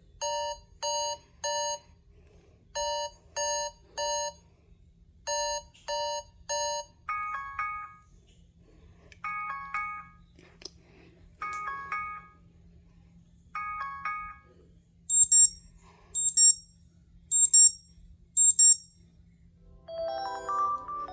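Alarm tones played in turn through a Lenovo tablet's speaker: first a chime of three quick beeps repeated three times, then a two-note chime repeating about every two seconds, then four loud high beeps about a second apart. Near the end a different, melodic alarm tune begins.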